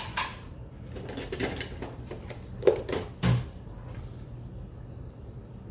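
Handling noises of small jewelry-making tools and parts on a work surface: a few scattered clicks and knocks, the loudest a sharp click followed by a duller thump near the middle.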